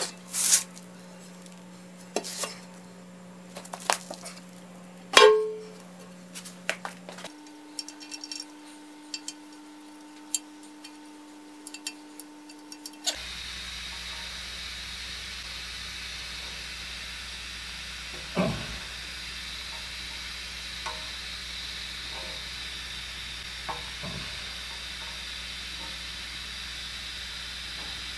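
Scattered metal clinks and knocks as heavy cast-iron lathe parts are handled on a concrete floor, the loudest knock about five seconds in. In the second half a steady hiss runs under a few more knocks.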